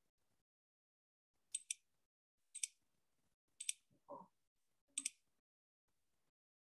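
Computer mouse clicking over near silence: four sharp clicks about a second apart, each a quick double tick, with a faint softer sound about four seconds in.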